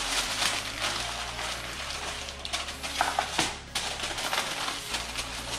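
Aluminum foil crinkling and crackling as it is folded and pressed by hand around a metal tray.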